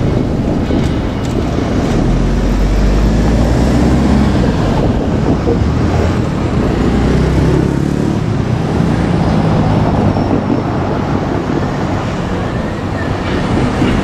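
JR Kyushu 817 series electric train rolling slowly across the points during a shunting move, a steady low rumble.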